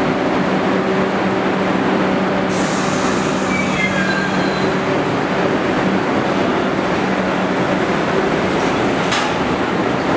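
Bombardier R62A subway train pulling out of a station and picking up speed along the platform. A steady hum fades as it moves off, and a sudden hiss starts about two and a half seconds in.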